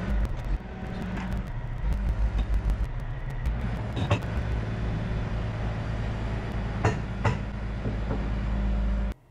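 Crane truck's engine running steadily as it lowers a suspended load, with a few sharp knocks partway through. The sound cuts off suddenly near the end.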